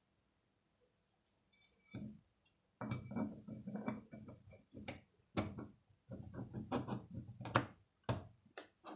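Small black device enclosure being fitted together and pressed shut by hand: a quick run of light clicks, knocks and scraping of the case parts, starting about two seconds in.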